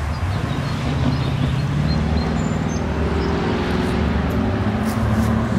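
Low, steady engine rumble from vehicles, with a hum that shifts in pitch.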